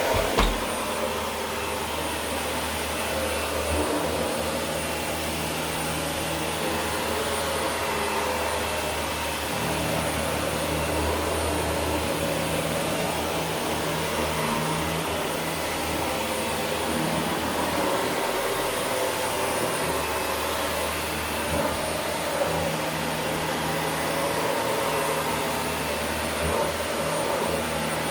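Dyson vacuum cleaner running steadily on carpet: an even rush of airflow with a thin high whine on top and a low hum that comes and goes as it is worked across the carpet. A short knock right at the start.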